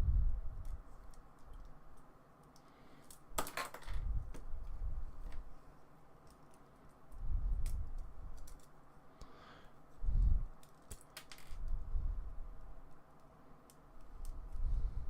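Light plastic clicks and taps from a model kit's parts and joints as the figure is handled and posed, with dull bumps against the table. A louder clatter comes about three and a half seconds in.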